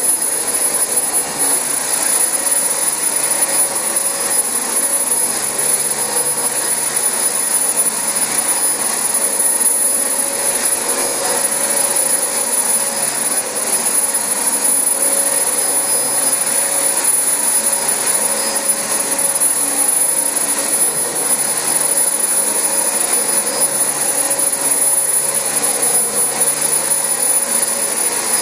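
Dyson DC25 upright ball vacuum cleaner running steadily on carpet, a constant rush of air under a thin high-pitched motor whine.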